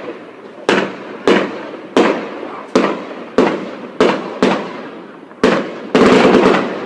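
Fireworks volley going off: a series of sharp bangs at a steady pace of roughly one every two-thirds of a second, each trailing off in an echo, ending in a dense crackling flurry of bangs near the end.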